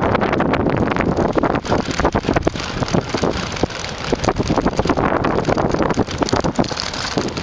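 Wind buffeting the microphone and bicycle tyres running over a rough dirt track, with many quick irregular knocks and rattles as the bike and camera jolt over bumps.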